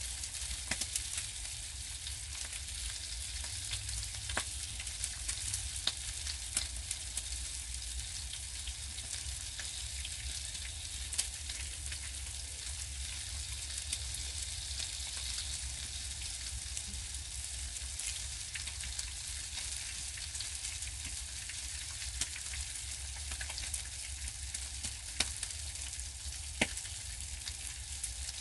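Food frying in a pan, a steady sizzle scattered with sharp little crackles and pops, over a steady low hum.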